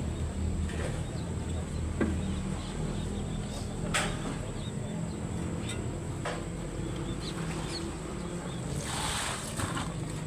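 A steady low engine hum, with a few sharp knocks about two and four seconds in and a short burst of hiss near the end.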